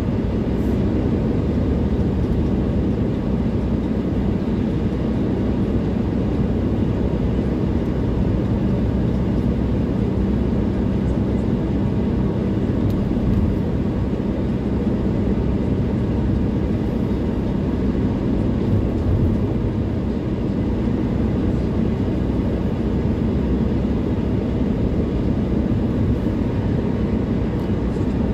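Steady low rumble of tyres and engine heard from inside a car's cabin while driving on a highway.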